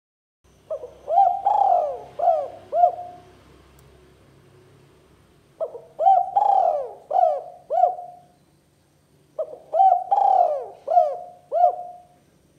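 Spotted dove (tekukur) cooing: three phrases about four seconds apart, each a run of four or five low coos with one longer, drawn-out note near the start.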